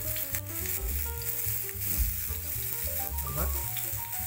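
Food sizzling in a hot frying pan, a steady hiss, with background music playing over it.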